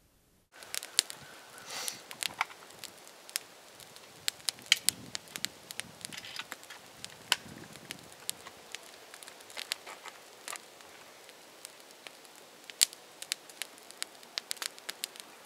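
Small fire of dry twigs and sticks crackling, with sharp, irregular pops and snaps over a low hiss. It starts suddenly about half a second in, with a few soft rustles in the first half.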